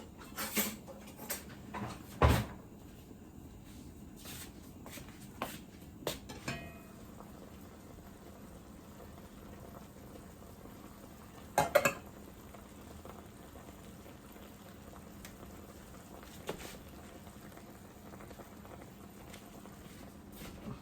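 Scattered kitchen knocks and clatters of pots, utensils and cupboard doors, about ten in all. The loudest is a heavy thud about two seconds in, followed by a quick double clatter near the middle, over a faint steady hum.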